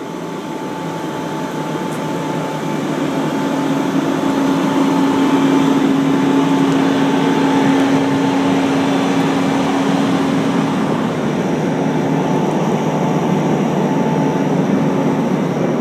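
Recovery winch and its truck engine running steadily, hauling a submerged pickup up by a strap: a continuous mechanical hum with a steady droning tone that grows louder over the first few seconds, then holds.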